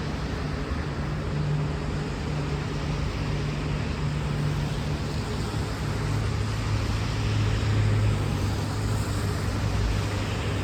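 A V/Line VLocity diesel multiple unit's engines running with a steady low hum, over a general rumble. About six seconds in the engine note shifts lower.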